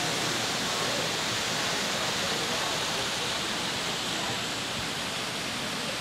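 A steady, even rushing hiss of background noise that does not change.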